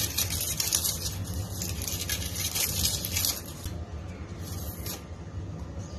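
Dry crackling rustle of a red onion's papery skin being handled and peeled off with a kitchen knife, loudest for the first three seconds or so, then quieter, over a steady low hum.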